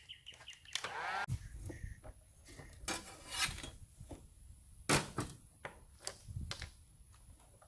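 Light clicks, taps and rubbing from handling wires and small tools on a workbench, with a few sharper knocks spread through.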